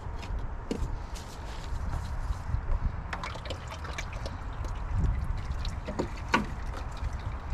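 Engine oil trickling and dripping from the Kioti DK4510's oil filter mount as the old filter comes off, with a few light clinks.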